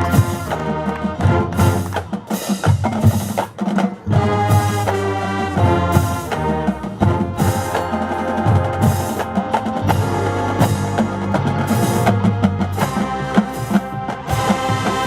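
High school marching band playing: brass chords over a drumline with snare and bass drums and woodblock-like clicks.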